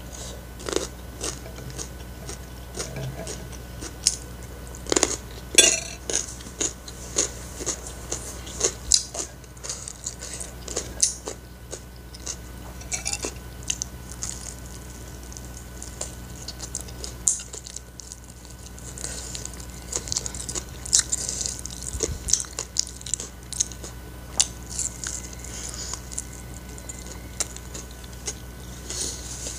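Close-miked mukbang eating: a person chewing a mouthful of fried rice and biting into fried chicken, with many short wet mouth clicks and smacks at an uneven pace.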